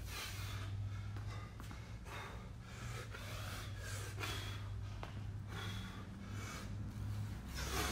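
A man breathing hard from the exertion of pistol squats mid-workout, sharp gasping breaths in and out about once a second, over a steady low hum.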